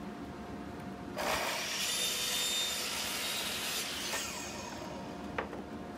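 Makita miter saw crosscutting a wooden board: the blade bites in about a second in and cuts for about three seconds, over a steady motor hum, followed by a single sharp click near the end.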